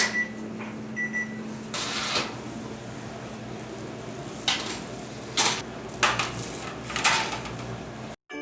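Kitchen appliance humming steadily, with a short electronic beep near the start and another about a second in. Several brief rustling, clattering noises come over the hum, and the sound cuts off suddenly near the end.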